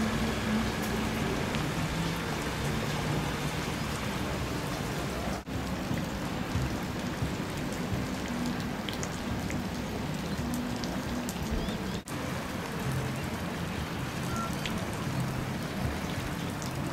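A steady rushing hiss of water, broken by two brief, sudden dropouts about five and a half and twelve seconds in.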